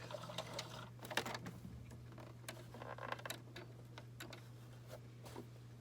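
Light, irregular mechanical clicks and taps from a sewing machine being worked at a slow pace, over a steady low hum.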